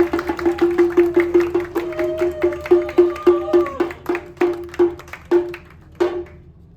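Wooden percussion strikes in a fast run, about four a second, slowing to a few spaced knocks and stopping near the end, over a sustained tone.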